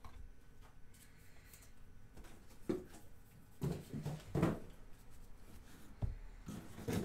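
Stack of trading cards being flipped through by hand, the cards sliding and tapping against one another in a few short, uneven rustles.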